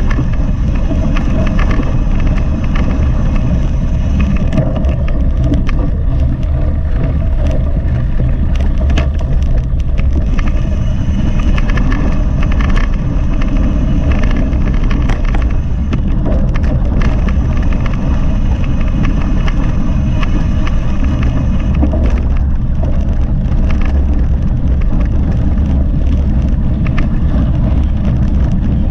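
Mountain bike being ridden with a GoPro recording: steady rumble of wind and tyres on the action camera's microphone, with scattered clicks and rattles from the bike over rough ground.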